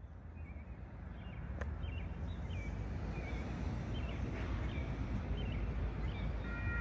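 Birds chirping over a low, steady rumble that grows louder. Near the end a train horn starts sounding, a chord of several steady tones.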